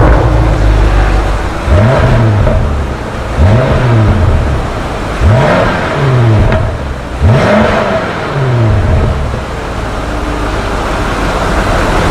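BMW X6 M (F96) twin-turbo V8 breathing through a Fi Exhaust valved cat-back and downpipes with the particulate filters removed, blipped four times about two seconds apart, each rev rising quickly and falling back. After the last rev it settles to a steady run.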